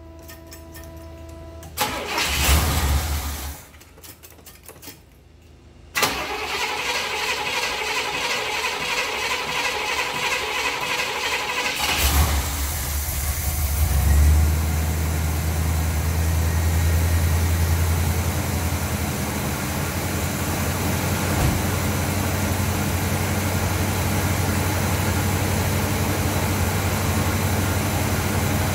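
1971 Cadillac 472 V8, its Rochester Quadrajet carburetor just primed with gasoline, being started: the starter cranks briefly about two seconds in, stops, cranks again from about six seconds, and the engine catches about twelve seconds in. It then settles into a steady fast idle, which the owner puts at about 1,500 to 1,600 rpm.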